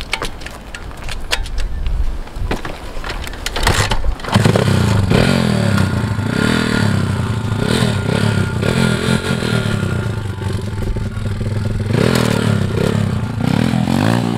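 Small MRF pitbike engine revving up and down as the three-wheeled bike is ridden, its pitch rising and falling. Sharp clattering and scraping clicks stand out over the first few seconds before the engine sound takes over about four seconds in.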